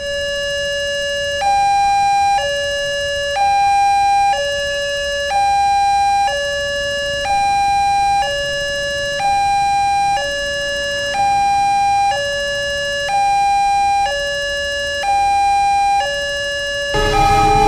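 Indonesian railway level-crossing warning alarm sounding: an electronic two-tone signal alternating steadily between a lower and a higher note, each held about a second, warning of an approaching train. Near the end a broad rumble of background noise joins it.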